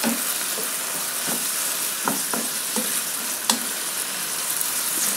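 Beef, onion and teriyaki sauce sizzling in a nonstick frying pan as a wooden spatula stirs it, with short scrapes and taps of the spatula against the pan now and then.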